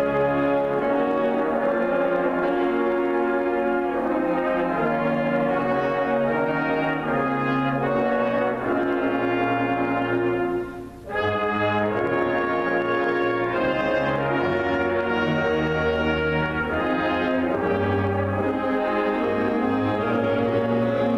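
Concert band playing sustained brass chords that change every second or two, with a short break in the sound about eleven seconds in.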